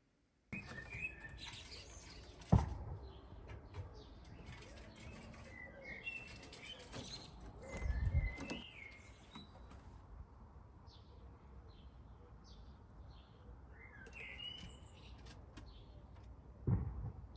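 Outdoor birdsong: birds chirping and calling on and off, over a low background rumble. A sharp knock comes about two and a half seconds in, with louder low buffets around eight seconds and again near the end.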